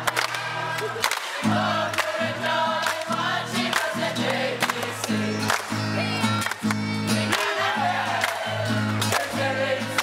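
A group of young voices singing a Pacific Island song together to a strummed acoustic guitar, with sharp hand claps in time.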